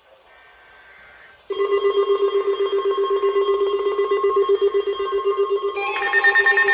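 Electronic emergency alert alarm, a loud, rapidly pulsing buzzing tone that starts suddenly about a second and a half in; a second, higher tone joins near the end. It is the alert going off for the listener's own area.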